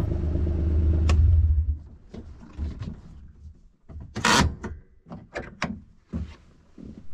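A vehicle's engine idles and is switched off about a second and a half in. Then come scattered clicks and knocks and one louder rustling rush as a door is opened and someone climbs out.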